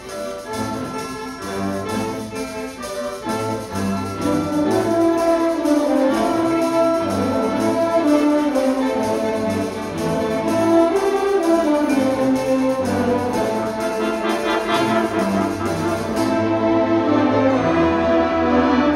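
A student orchestra playing, bowed strings with a quick, even pulse running under the melody; the pulse drops away about sixteen seconds in.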